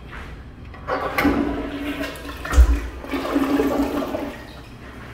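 Alpine Hemlock push-button tank toilet flushing: a rush of water starts about a second in and drains away near the end, with a low thump partway through and a humming tone in the rushing.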